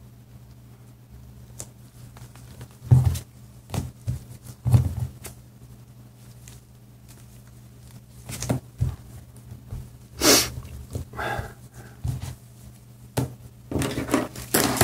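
Gloved hands handling and pressing a small plastic pouch cell on paper: irregular rustles, rubs and light taps, several close together near the end, over a steady low hum.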